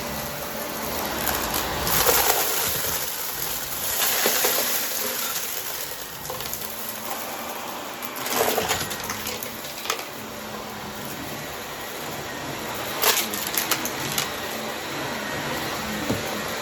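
Vacuum cleaner running with its brushroll sweeping up crunchy debris, with crackling bursts of crunching every few seconds as the mess is picked up.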